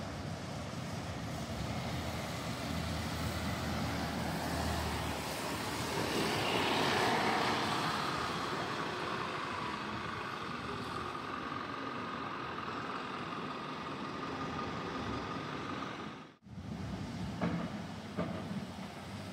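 Street traffic with a bus driving past. The noise swells as it passes close about seven seconds in, then fades to a steady rumble. The sound cuts out for an instant about sixteen seconds in.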